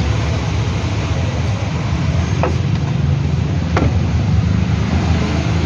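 A motor vehicle engine running steadily with a low, pulsing rumble, with two sharp metallic clicks about halfway through.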